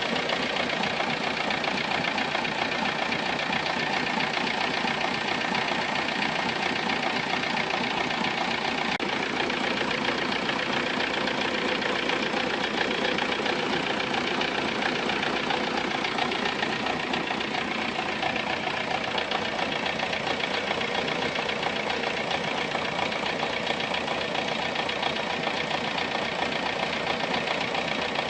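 Volkswagen Golf Mk3 engine idling steadily with an unusual noise, which the mechanic calls a strange sound whose cause he has only about 80% worked out.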